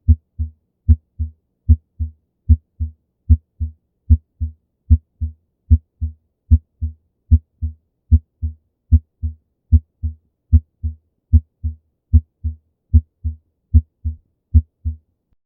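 Heartbeat as heard on auscultation of a heart with mitral stenosis, steady at about 75 beats a minute. Each beat is a loud first heart sound followed about a third of a second later by a softer second sound.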